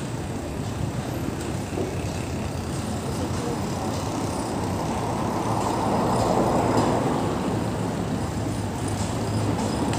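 Road traffic noise, a steady rush of passing cars, swelling louder for a couple of seconds in the middle as a vehicle goes by.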